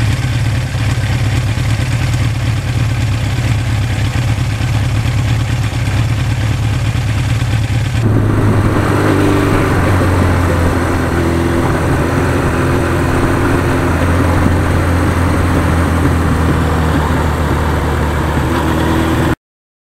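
1982 Suzuki GS1100E's air-cooled inline-four engine running steadily as the motorcycle is ridden. The sound changes abruptly about eight seconds in, then cuts off suddenly near the end.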